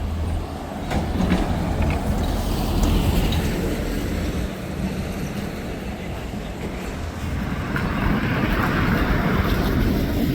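Heavy vehicle noise: a steady low rumble with a hiss that swells about three seconds in and again near the end.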